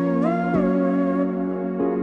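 Background music: a slow melody that glides up and down in pitch over held chords.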